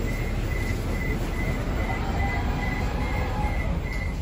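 Moscow Metro train running between stations, heard from inside the carriage: a steady rumble of wheels and running gear, with a faint high tone pulsing about three times a second.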